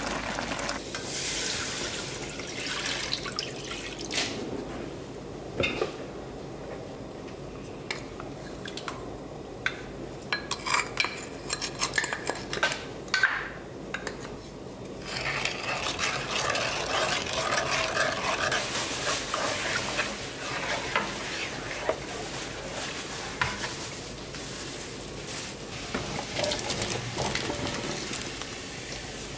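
Cooking sounds at a nonstick frying pan: a spoon stirring tteokbokki sauce and clinking against the pan, with a run of sharp taps about a third of the way in and the sauce bubbling in between.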